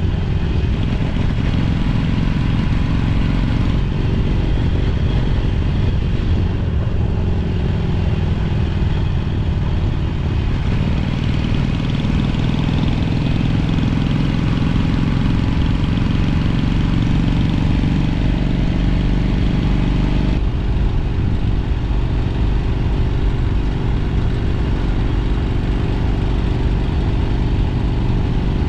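A 1964 Honda CA77 305 Dream's 305 cc four-stroke twin-cylinder engine running under way. Its pitch falls at first, climbs steadily through the middle and drops suddenly about twenty seconds in.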